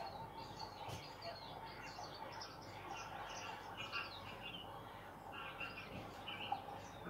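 A chorus of small birds calling, many short overlapping chirps and tweets, fairly faint.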